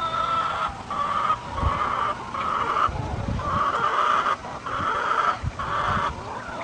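Hens squawking and clucking loudly, a run of about seven harsh calls with short breaks between them, over a few low thumps.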